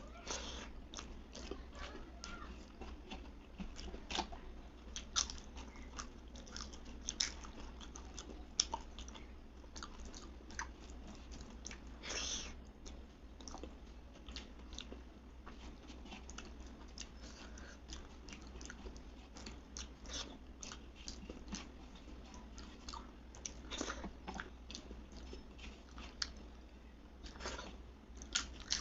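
Close-up eating sounds: a person chewing and smacking a meal of rice and dal eaten by hand, with frequent wet mouth clicks and occasional crunchy bites.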